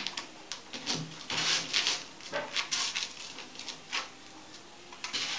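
A collie and a budgerigar at play: an irregular run of short scratchy, snuffly noises, several a second, loudest about one and a half to two seconds in and again near the end.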